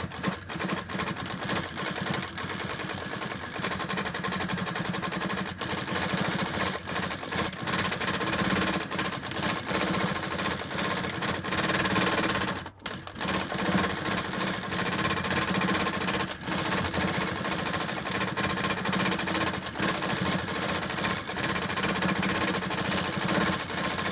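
Hightex 7138 compound-feed walking foot industrial sewing machine stitching steadily through layers of denim. It stops briefly about halfway, then starts sewing again.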